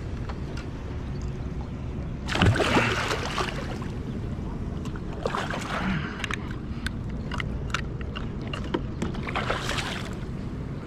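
Water sloshing and splashing around a kayak in three short bursts, with scattered small knocks, over a steady low rumble of wind and water.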